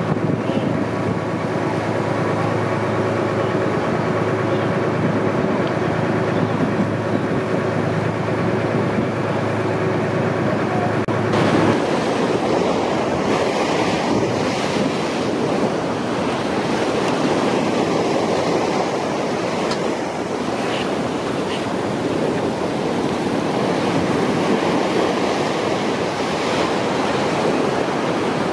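A motorboat's engine runs steadily under a rush of wind on the microphone and water. About eleven seconds in the engine note drops out suddenly and only the wind and water rush remains.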